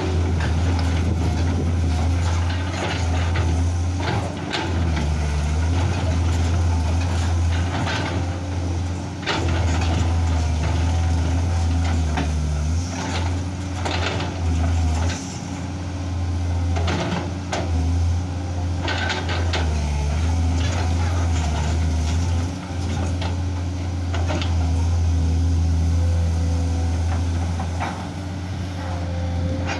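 Komatsu hydraulic excavator's diesel engine running under load, its level dipping and rising every few seconds as the boom and bucket work, with scattered knocks and scrapes of limestone rock while the bucket loads a dump truck.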